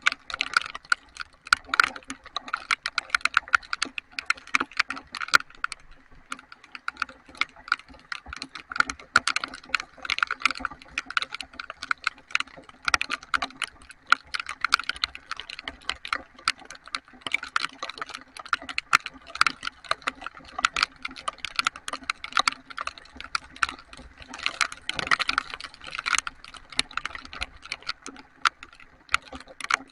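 Heavy rain: a dense, irregular patter of sharp taps from raindrops striking close to the microphone.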